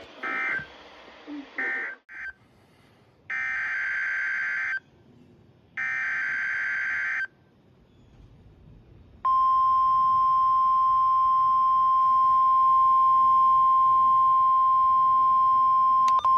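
NOAA Weather Radio alert signalling. There are short digital data blips near the start, then two harsh, buzzy SAME data bursts of about a second and a half each, the coded header of a new alert. About nine seconds in, the steady, piercing 1050 Hz warning alarm tone starts and holds, announcing that a warning is about to be read.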